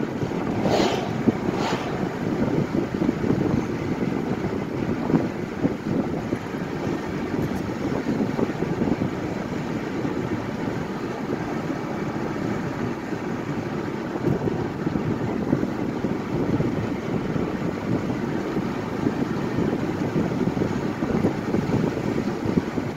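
Steady tyre and wind noise of a car driving along an open road. Two oncoming vehicles swish past in quick succession about a second in.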